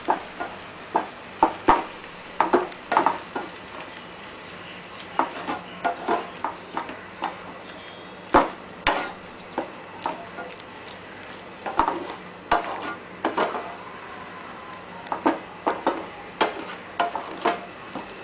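Utensil knocking and scraping against a frying pan as spaghetti in pesto sauce is stirred: irregular clicks and taps, several a second in bunches, over a faint steady hiss.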